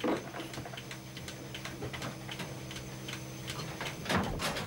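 Goat milking machine running on the udder: the pulsator ticks about twice a second over a steady machine hum, with a louder burst of noise near the end.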